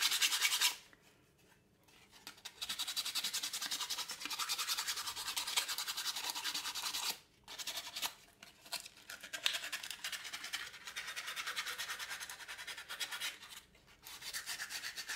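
Sandpaper rubbed by hand back and forth over a wooden knife handle: quick, even rasping strokes that stop briefly about a second in, again midway and near the end.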